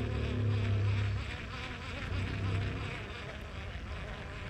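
A flying insect buzzing: a low buzz, loudest in the first second and swelling again briefly about two seconds in.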